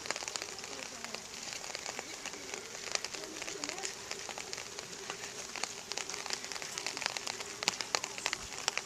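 Rain falling, with irregular sharp ticks of drops landing close by, coming more often in the second half.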